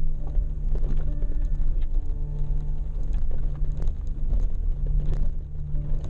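Jeep driving down a rough dirt track: a steady low engine and road rumble, with frequent short knocks and rattles from the bumps. Calm background music with long held notes plays over it.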